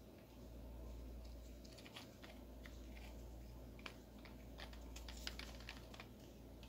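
Faint, irregular clicks and taps from a rough stone being turned in the fingers, fingernails and stone knocking lightly, with a cluster of clicks near the end, over a low steady hum.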